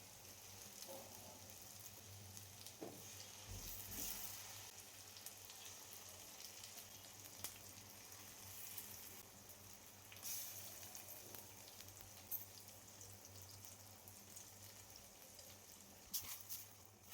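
Food frying in a pan, a faint steady sizzle, with a few light clicks now and then.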